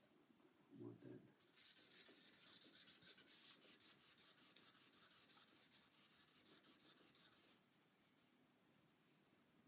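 Wet sandpaper on a soft sanding pad rubbing over a guitar body's waterborne lacquer finish: faint back-and-forth sanding strokes that stop a little past halfway.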